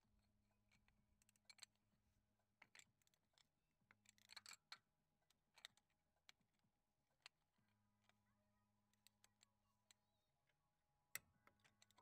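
Near silence: room tone with a faint low hum and scattered, irregular light clicks, a little stronger about a second before the end.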